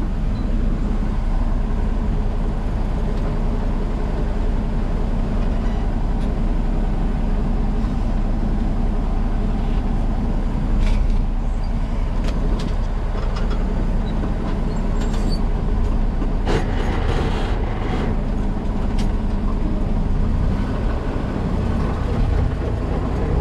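Ford F800 grain truck engine idling steadily while the truck stands on the scale, heard from inside the cab.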